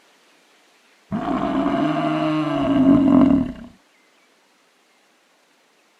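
A bison bellowing: one long, deep call of about two and a half seconds, starting about a second in.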